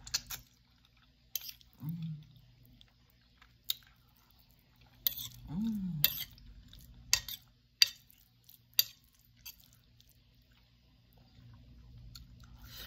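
Close-up eating sounds: chewing on fried chicken and rice, with scattered sharp clicks of a metal spoon against a plate. Two short, low, falling hums are heard, about two seconds in and near the middle.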